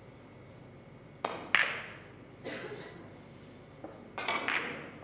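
A carom billiard shot: the cue strikes the cue ball, then the balls click against each other and knock off the cushions. The loudest click is about one and a half seconds in, and a few more hits follow over the next three seconds.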